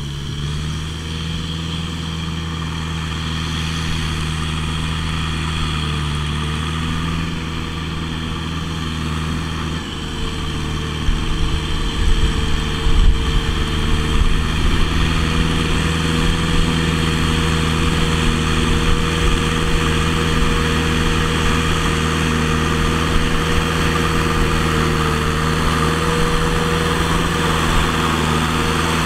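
Kubota M6040SU tractor's diesel engine running steadily as its front blade pushes soil. It grows louder and rougher about ten seconds in, as a heavy pile of earth builds up ahead of the blade.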